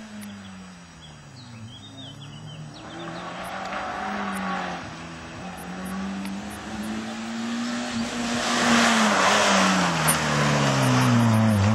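Small hatchback rally car at full stage pace, its engine revving hard and changing gear again and again, the pitch climbing and dropping several times. It starts distant and grows louder, and a rush of engine and tyre noise peaks as it passes close, about eight seconds in.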